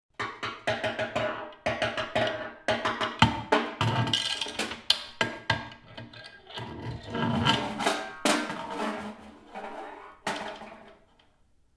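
Snare drum played with drumsticks in irregular, quick runs of sharp strokes broken by short gaps. The strokes start abruptly and die away near the end.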